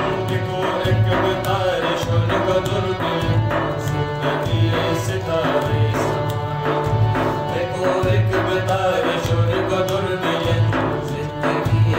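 Live Shina folk music: a harmonium holds sustained reedy chords over a steady hand-drummed beat on a hard case, with a man singing.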